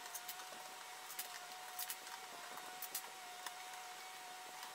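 Faint, sharp clicks and light knocks from a three-fan radiator being handled and positioned against the case, a few close together near the middle, over a faint steady whine.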